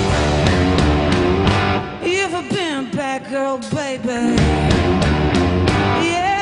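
Blues-rock band playing with electric guitar, bass and drums. About two seconds in, the bass and drums drop out and a bending melodic line carries on alone in a stop-time break. The full band comes back in about two seconds later.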